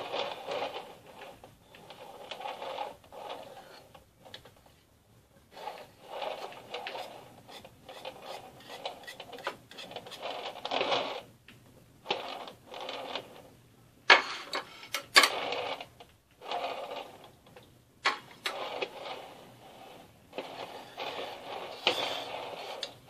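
Metal palette knife scraping as it spreads a thin layer of cream across the top of a cake, in short strokes with pauses between, with a few sharp clicks of metal tapping.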